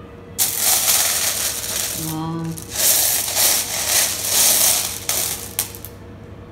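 Many small, flat polished stones clattering and rattling against each other as they are shifted, in two long stretches.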